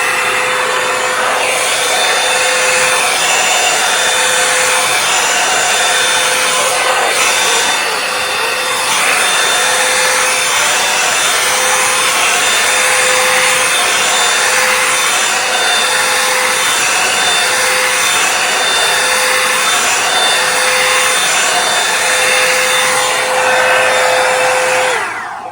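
Revlon One Step hair dryer brush running on its high setting: a loud, steady blowing rush with a fixed motor whine. It is switched off at the very end.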